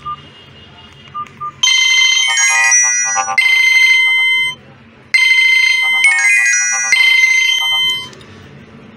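The itel Power 900 keypad phone's loudspeaker plays a ringtone melody loudly, in two phrases with a short break between them, as its sound quality is checked. A couple of short key beeps come before it.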